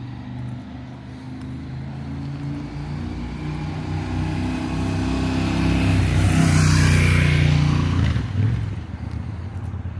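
A car approaching and passing close by on the road, its engine and tyre noise growing louder for about six seconds, then falling away sharply about eight seconds in.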